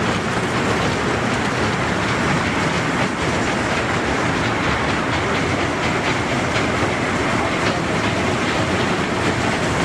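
Small kiddie ride train with cartoon-mouse cars running on a circular steel track. Its wheels roll on the rails with a steady rattle and faint clicks.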